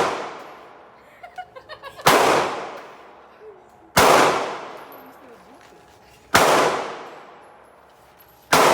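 Four gunshots about two seconds apart, each ringing off in a long echo, with a few light metallic clinks between the first two.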